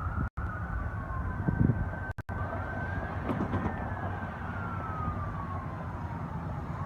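Ambulance siren wailing. It holds at its high pitch for about two seconds, then sweeps slowly down and back up, with a low rumble beneath. The audio drops out briefly twice in the first few seconds.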